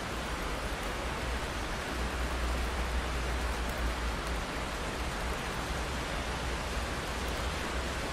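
Steady rain falling on a window pane, an even hiss of drops with no single strikes standing out, over a constant low rumble.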